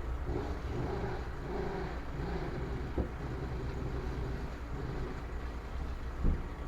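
Steady low rumble of a vehicle engine running, with two short knocks, the louder one near the end.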